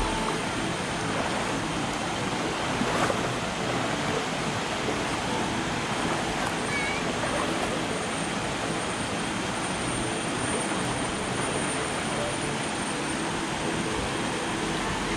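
Shallow, rocky river running over and between boulders: a steady, even rush of flowing water.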